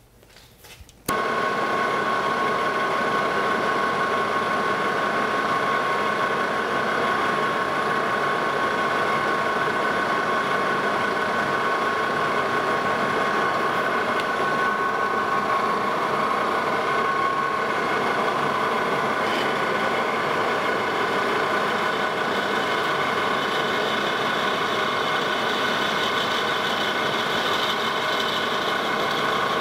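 Metal lathe starting up about a second in and then running steadily with a constant whine, turning a brass casting while a drill in the tailstock cuts a hole through its centre. The hiss brightens somewhat in the last third as the larger twist drill cuts.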